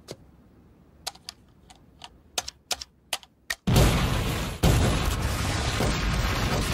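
Cartoon sound effects: a remote detonator's button clicked about ten times, then a sudden loud explosion a little under four seconds in, a second blast about a second later, and a continuing rumble of the explosions.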